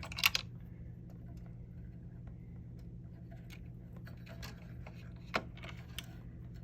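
Scattered light clicks and taps from small parts and wires being handled, with a sharper pair of clicks just after the start and another a little past five seconds, over a steady low hum.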